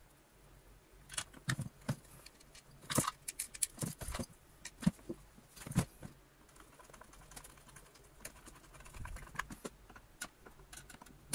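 Light clicks and knocks at uneven intervals from a screwdriver working the motor-casing screws and the hard plastic motor housing of a Hoover Junior 1334A vacuum cleaner being handled and set against a plastic lid, as the casing is tightened down.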